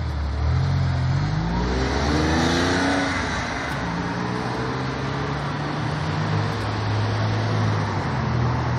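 Porsche 911's flat-six engine accelerating away, its note rising for about two seconds, then dropping and running on at a steadier, lower pitch.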